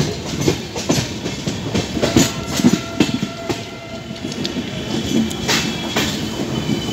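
Rajya Rani Express passenger coach running over rail joints and points as it pulls out of the junction, wheels clattering in an irregular series of sharp knocks over a steady rumble, heard from the open doorway.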